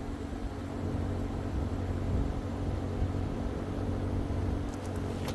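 A vehicle engine idling with a steady low hum under a background wash of noise, with a few short clicks near the end.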